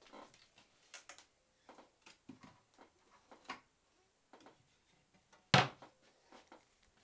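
Scattered soft clicks and knocks of a handheld camera being moved around, with one sharp thump about five and a half seconds in.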